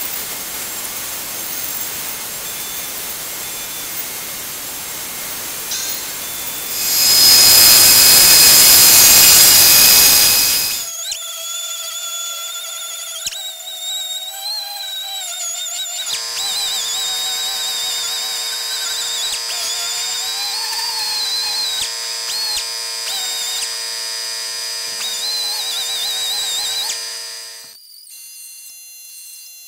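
Pneumatic random orbital sander running on wooden axe handles, its whine wavering in pitch as it is pressed on and moved. It is preceded by about eleven seconds of steady rushing machine noise that grows louder for several seconds before the whine begins.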